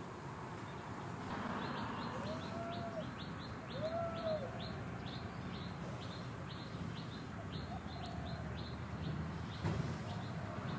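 A bird giving a long, even series of short high chirps, about three a second, over steady outdoor background noise. Twice in the first half a short, lower call rises and falls.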